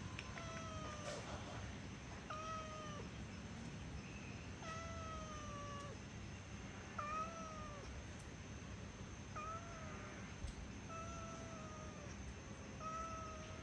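A cat meowing over and over: about eight short, high mews spaced a second or two apart.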